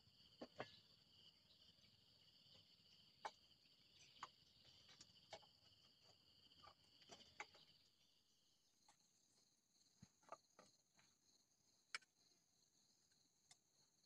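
Steady high drone of insects, which shifts pitch about eight seconds in, with scattered light clinks and knocks of cooking utensils against pots and bowls, about a dozen short sharp strikes.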